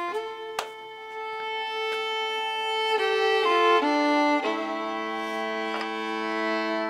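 Background music: a fiddle playing slow, held notes, two or three at a time, with a light knock about half a second in.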